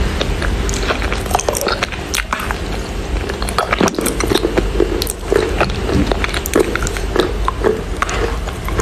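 Biting and chewing wet Chinese loess clay: irregular crunching with many sharp crackling clicks.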